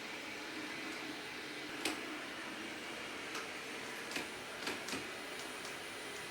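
iriver INR-100 robot vacuum running with a steady whirring hum, with a few sharp clicks, one about two seconds in and three close together a little past the middle.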